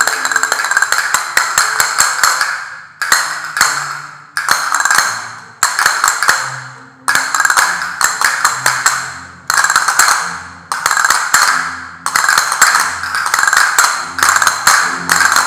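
Several pairs of castanets played together in rhythmic phrases: quick runs of sharp wooden clicks, each phrase starting about every second and a half and fading before the next.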